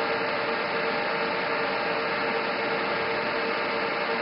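Steady background hiss with a faint, even hum underneath.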